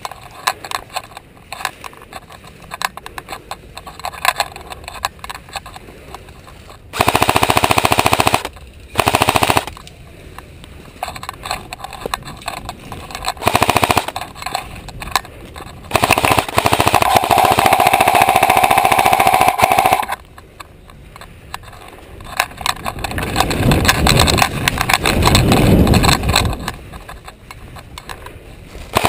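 Airsoft electric rifle firing several full-auto bursts of rapid shots, the longest lasting about four seconds. A duller, lower noise follows later on.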